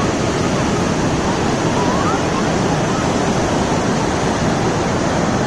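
Steady rush of rain-swollen water flowing hard, an unbroken noise with no pauses.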